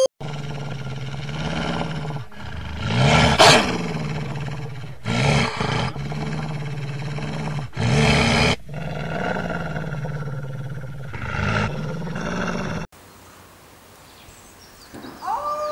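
A wolf growling low and continuously, with four or five louder surges, cutting off abruptly about thirteen seconds in. After a short stretch of faint hiss, a rising howl begins just before the end.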